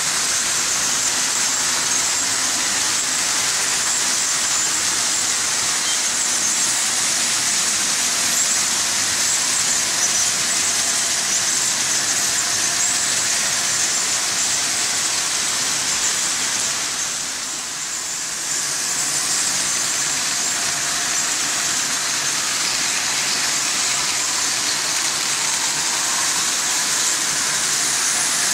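Several Märklin H0 model trains running at once on metal M-track: a steady, hissing rattle of the wheels on the pressed-steel rails, briefly quieter about two-thirds of the way through.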